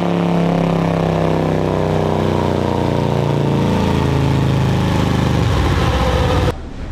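Harley-Davidson Road Glide Special's Milwaukee-Eight V-twin, fitted with a Screaming Eagle torque cam and stage 2 tune, running loud on a chassis dyno. The sound cuts off suddenly near the end.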